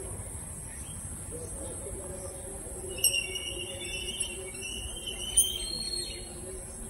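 Insects droning steadily at a high pitch. About three seconds in, a few short chirps break in, along with two sharp clicks, the second one louder.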